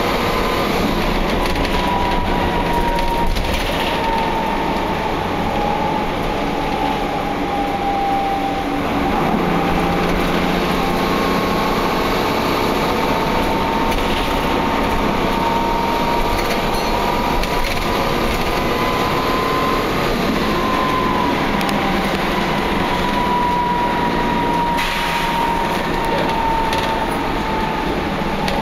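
Wright Cadet single-deck bus heard from inside while under way: steady engine and road noise with a high whine that slowly slides down in pitch and climbs again several times. The bus is sounding poorly, making strange noises.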